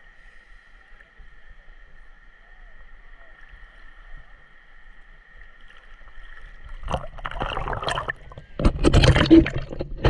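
Seawater splashing and sloshing right at the microphone as the camera is dipped to the sea surface. It is loudest about a second before the end. Before that there is only a faint steady high hum.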